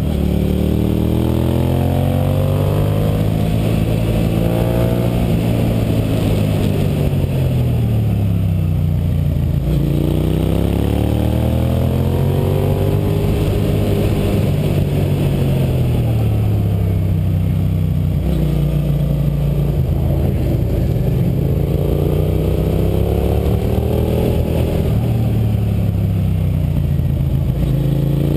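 Suzuki SV650's V-twin engine pulling hard and easing off through a run of tight bends, its pitch sweeping up and down every few seconds. A steady rush of wind and road noise runs underneath.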